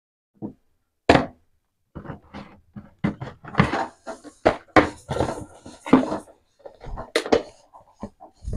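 Irregular handling sounds: a run of short knocks, taps and rustles, with a sharp knock about a second in and another near the end.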